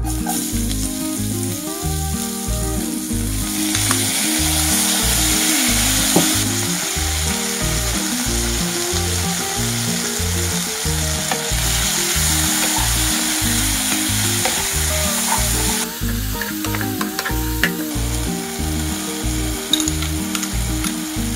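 Vegetables and spices frying in hot oil in a nonstick kadai, a steady sizzle that is loudest in the first three-quarters and fades about 16 seconds in, followed by a few clicks of a utensil on the pan. A background music track with a steady beat plays throughout.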